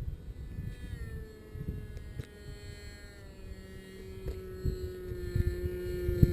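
Rossi .53 two-stroke glow engine with a tuned pipe running at low throttle, a steady drone whose pitch slowly falls. Irregular low buffeting from wind on the onboard camera runs under it.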